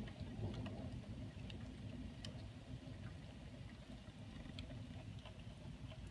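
Faint steady rain during a thunderstorm, with a low rushing background and scattered drops ticking close by at irregular intervals.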